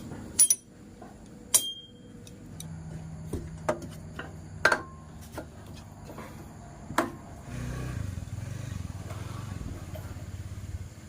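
Sharp metal clinks and knocks of hand tools on scooter engine parts, about half a dozen spread through, one ringing briefly; from about two-thirds of the way in, a motor vehicle engine runs steadily underneath.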